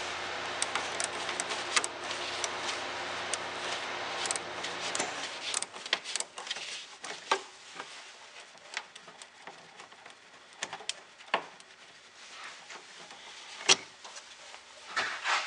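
Small wrench working the negative battery terminal clamp bolt loose: scattered light metal clicks and taps, with one sharper click near the end. A steady low hum runs under the first few seconds and then cuts off.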